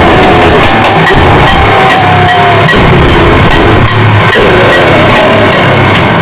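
Harsh noise music: a loud, dense wall of distorted noise with sharp clicks repeating about three times a second, wavering mid-pitched tones that rise and fall, and a distorted low rumble underneath.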